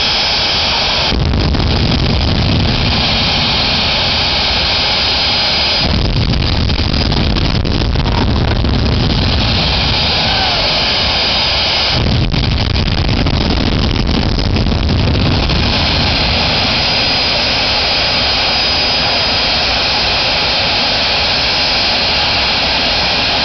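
Jet engine mounted on a Peterbilt truck running loudly with a steady high whine and hiss; three times the throttle is opened, a heavy low rumble building for a few seconds each, before it settles back to a steady run for the last several seconds.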